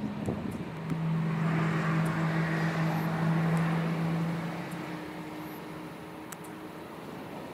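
A motor vehicle's engine running past: a steady low engine hum with road hiss that swells about a second in and fades away after about four seconds.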